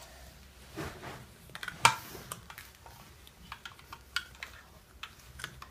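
Scattered light clicks and taps of plastic toy dentist tools being handled, the loudest a single sharp tap about two seconds in.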